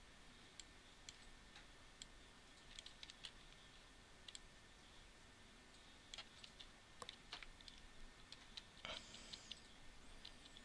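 Faint, scattered clicks of a computer keyboard and mouse over near-silent room tone, with one brief louder noise about nine seconds in.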